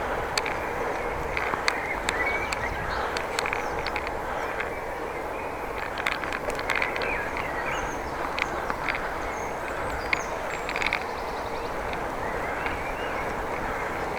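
Riding a bicycle: a steady rush of tyre and wind noise, with many scattered sharp clicks and rattles and a few short bird chirps.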